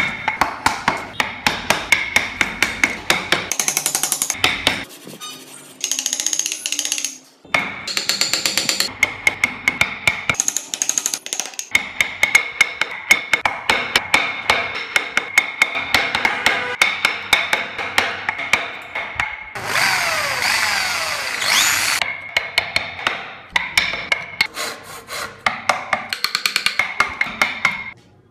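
A wood chisel struck by a mallet while carving a solid wooden car body: fast repeated sharp knocks, about four or five a second, broken by a few short pauses. About twenty seconds in there is a brief stretch of hissing noise.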